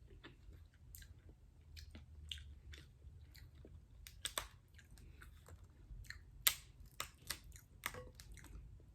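A person chewing and eating food close to the microphone: wet mouth smacks and sharp clicks at an irregular pace over a low room hum.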